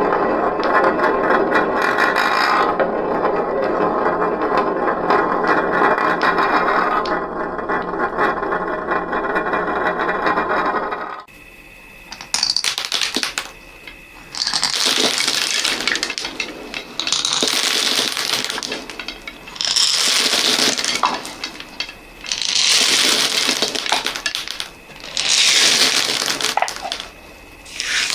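Many small hard objects, such as beads and balls, pouring and clattering together in a dense, continuous rattle. After about eleven seconds the rattle breaks into separate bursts, each a second or two long, coming about every two and a half seconds.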